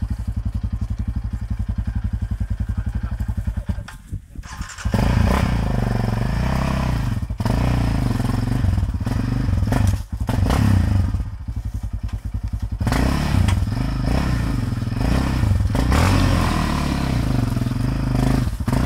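Sport quad (ATV) engine idling with an even beat, then revved hard again and again from about five seconds in, with brief drops in between, as the rider tries to drive the quad out of thick brush where it is stuck.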